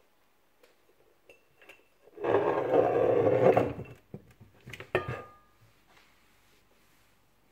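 A hand handling things on a kitchen counter: a loud scuffing, rustling noise for nearly two seconds, then a few sharp clinks about five seconds in, one of which leaves a short ring, as a glass bottle is gripped and moved.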